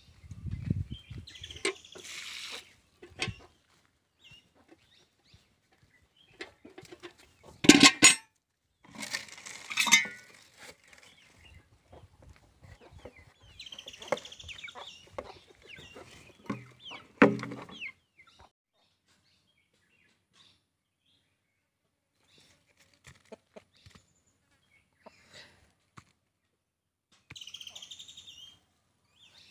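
Chickens clucking now and then, with a few loud knocks and rustling noises in between.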